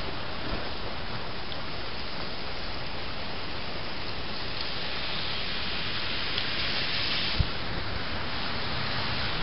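Heavy rain pouring down in a steady hiss, swelling a little louder and brighter about halfway through.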